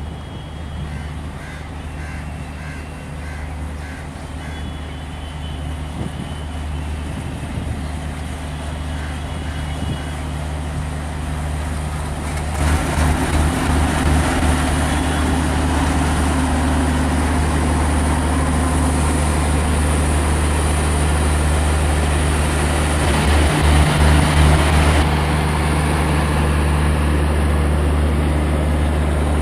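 Electric train running at speed: a steady low hum under a rushing rumble of wheels on rail, which grows louder and steps up sharply about twelve seconds in.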